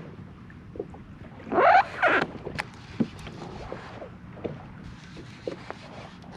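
Water lapping against a fishing kayak's hull, with scattered small clicks and a louder two-part noisy burst about a second and a half in.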